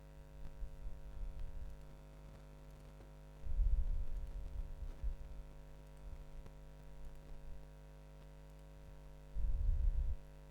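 Steady electrical mains hum in the recording, with two short bouts of low rumble against the microphone, about three and a half seconds in and again near the end.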